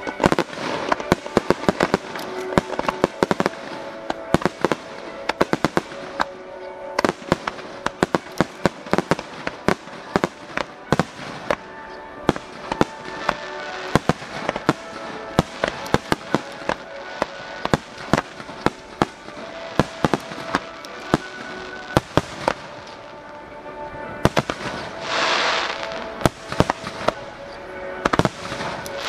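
Fireworks bursting in rapid succession, dozens of sharp bangs, over music playing along. A short burst of hiss comes about 25 seconds in.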